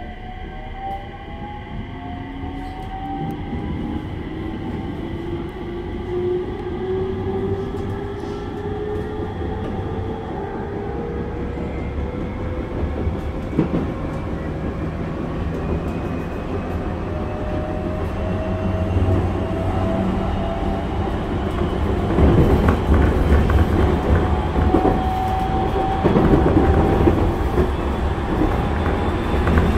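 A JR 701 series electric train's MT65 traction motors whining inside the passenger car, the pitch climbing steadily as the train accelerates. The rumble of wheels on rails grows louder in the last third.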